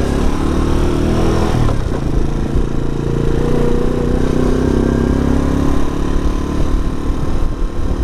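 Keller 110 motorcycle's small single-cylinder engine running under way, its note dipping about two seconds in and then climbing steadily as it pulls, over low wind rumble on the microphone.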